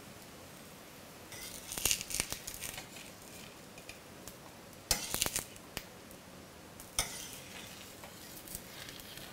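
Metal spatula scraping and clicking against a metal tawa in three short bursts, about a second in, around the middle and once more near seven seconds, over a faint sizzle of the dhapata flatbread frying in a little oil.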